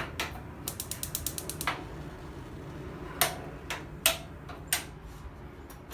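Piezo spark igniter on a propane RV cooktop clicking as it is worked to light a burner: rapid runs of sharp ticks in the first couple of seconds, then a few single louder clicks.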